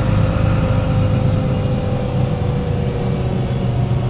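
MAN NL 263 city bus with its MAN D08 diesel engine idling: a steady low rumble with a steady higher whine above it.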